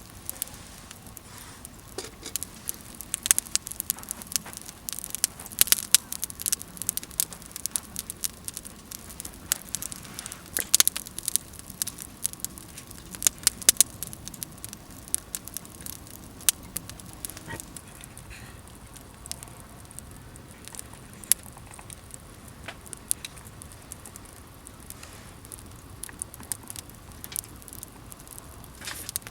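Wood campfire crackling, with many sharp pops and snaps that come thick through the first half and thin out in the second.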